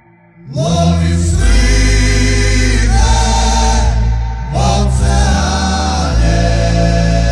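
A wordless choir of multi-tracked male voices, all sung by one singer, holding chords over a steady low drone. After a near-silent first half second the voices enter with a rising swoop, dip briefly, and swoop up again about four and a half seconds in.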